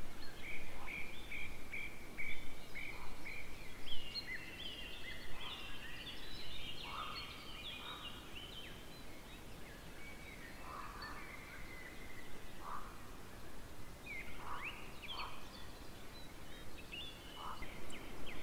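Songbirds singing in the woods, several songs overlapping. A run of short, evenly spaced notes comes near the start, and lower single notes sound every second or two.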